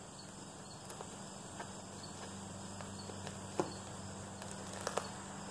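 Faint steady chirring of insects, with a few soft clicks and taps as a cloth drawstring bag and a pocket knife are handled. The sharpest tap comes about three and a half seconds in.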